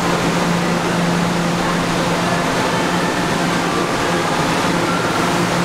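Steady hum and rush of a standing R211A subway train's air-conditioning and onboard equipment, a constant low-pitched drone under an even hiss.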